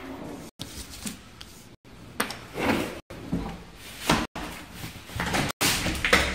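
Sheets of paper being handled and slid across a cloth-covered table, in several short rustling, scraping sweeps with light knocks.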